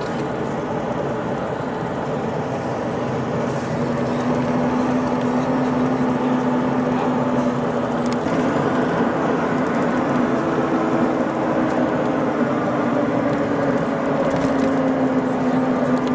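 Steady drone of a running vehicle engine with road or travel noise, its pitch shifting slightly about halfway through.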